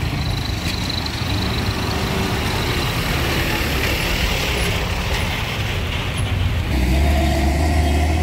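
Road traffic passing close by: a truck's engine and tyres with cars and motorcycles. About seven seconds in, it gives way to a louder, steadier, deeper engine drone.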